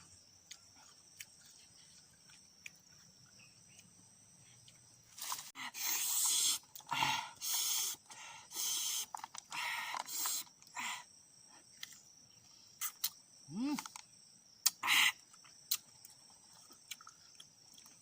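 Crunching bites and chewing of young tamarind pods: a run of loud crunches for several seconds in the middle, then a few single crunches. A faint, steady high-pitched buzz runs beneath.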